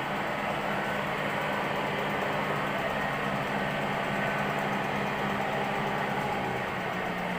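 Soviet-built universal milling machine running steadily: a low hum with a dense whirring noise over it, with no change in pitch or level.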